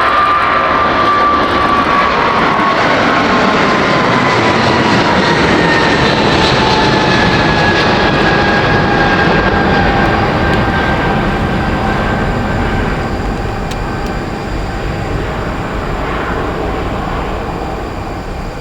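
Boeing 777-300 twin-jet airliner's engines at high thrust passing by, a loud roar with a whine that slides steadily down in pitch as the aircraft moves away. The sound fades slowly over the second half.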